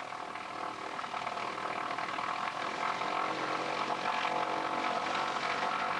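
Piston engine and propeller of a high-wing single-engine light aircraft running steadily on a dirt airstrip, with an even engine drone that grows gradually louder.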